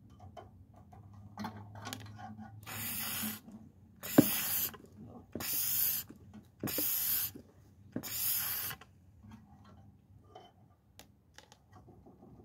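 Five short hissing bursts of spray or air, each under a second long and a little over a second apart, with small clicks and knocks of handling between them.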